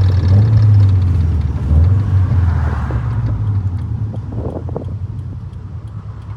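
Scion FR-S's flat-four engine running with a low, steady drone that eases off after about two seconds, the level falling gradually after that.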